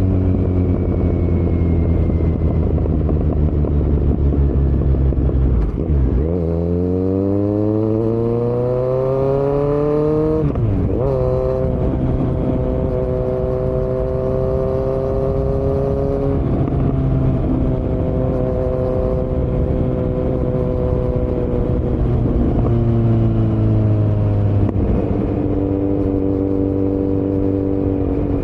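2018 Kawasaki Z900's inline-four engine through Delkevic headers and a Yoshimura muffler with no dB killer, heard while riding. Its pitch drops about six seconds in, then rises steadily under acceleration. It breaks briefly at a gear change near eleven seconds, then runs fairly steady with further small shifts in pitch.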